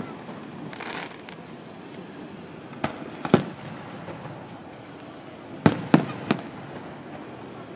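Fireworks shells bursting with sharp bangs. There is one right at the start, a pair about three seconds in, and a quick run of three near six seconds.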